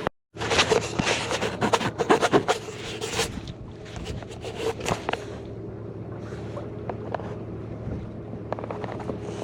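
A small boat's motor running steadily on the water. For the first three seconds it comes with irregular splashing and clatter.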